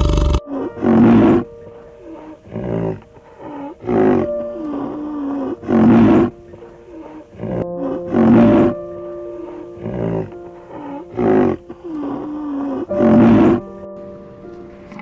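Background music with about eight short, loud animal calls at uneven intervals.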